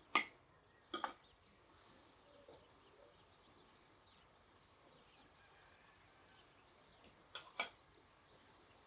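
Knife and fork clinking against a plate: one sharp clink just after the start, a quick double clink about a second in, and another double clink near the end, over faint birdsong.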